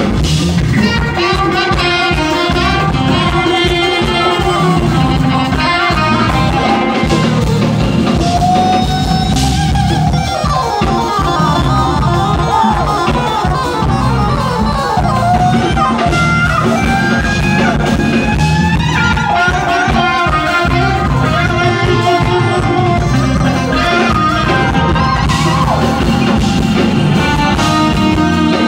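Live jazz-fusion band playing, with electric bass, drums, guitar and keyboards, over which a lead line slides up and down in pitch.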